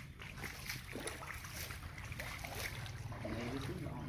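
Shallow water sloshing and splashing as a crocodile thrashes and is dragged through it on a rope, over a steady low hum.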